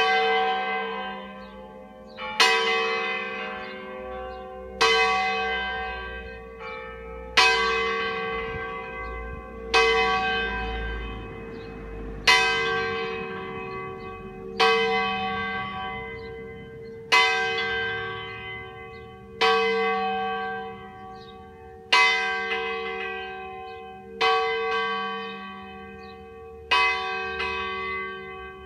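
A swinging church bell, one of a ring cast by Ottolina of Seregno in 1947, strikes about every two and a half seconds, a dozen strokes in all. Each stroke rings on and fades before the next.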